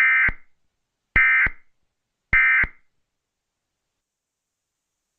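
Emergency Alert System end-of-message tones: three short bursts of the SAME digital data signal, about a second apart, marking the end of the alert.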